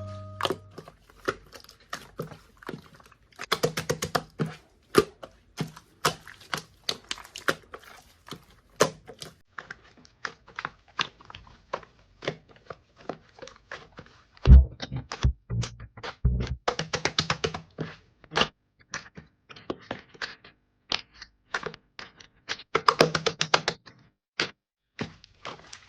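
Slime being pressed and worked by hand, making a stream of irregular sticky clicks and pops, with a few dull thumps about halfway through.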